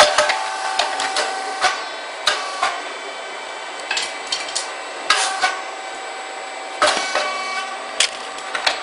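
Puffed rice cake machine cycling: sharp metallic clacks and knocks from the press and mould every second or two, over a steady machine whine.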